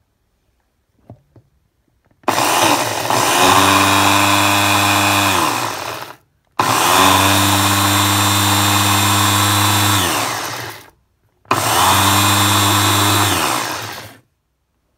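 Electric food chopper grinding graham crackers into crumbs, run in three pulses of about three to four seconds each, the motor's pitch dropping as it spins down at the end of each pulse.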